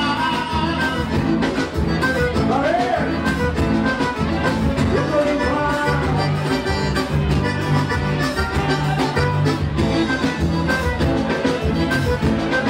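Live band playing, with an accordion carrying the melody over electric bass, drums and keyboard and a steady beat.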